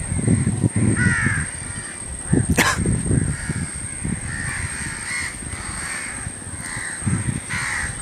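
Crows cawing repeatedly from a treetop, over a low uneven rumble and a steady faint high whine. A sharp click about two and a half seconds in.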